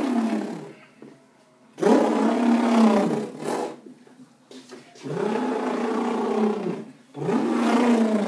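A person imitating an elephant's trumpeting with his voice: long, loud calls that each rise and then fall in pitch, with short pauses between. One call ends just after the start, then three more follow.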